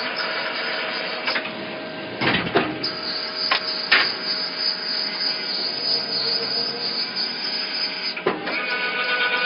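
Large-nut tapping machine running steadily, a mechanical hum with a constant whine, as its tap spindle works a nut in cutting oil. Several sharp clacks come a couple of seconds in and one more near the end.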